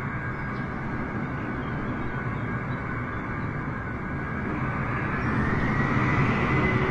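Antonov An-225 Mriya's six turbofan jet engines running as the aircraft rolls slowly along the runway: a steady jet rumble with a high whine that grows louder about five seconds in.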